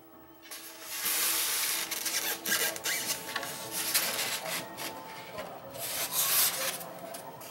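Styrofoam packing lid rubbing and scraping against the foam base as it is pried loose and lifted off, in uneven swells.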